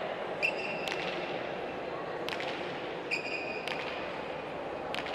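A hard pelota ball bounced by hand on the frontón court floor: about six sharp knocks at uneven spacing that ring briefly in the hall. Two short, high squeaks, each about half a second long, come about half a second in and just after three seconds in.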